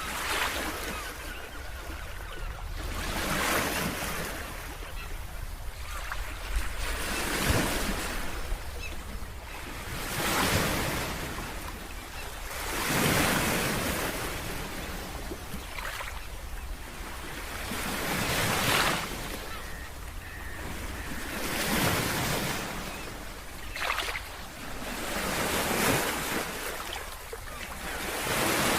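Ocean surf breaking on a beach: a wash of waves swelling and falling back every few seconds over a steady low rumble.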